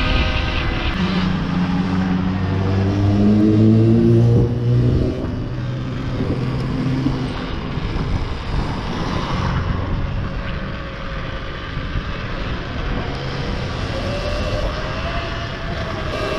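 A vehicle speeding up, its whine rising in pitch over the first few seconds. It then settles into steady wind and rolling noise.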